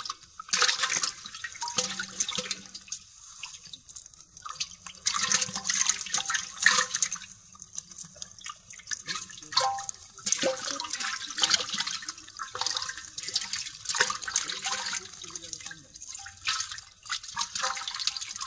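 Water splashing in irregular bursts as live small fish thrash in a metal basin of water.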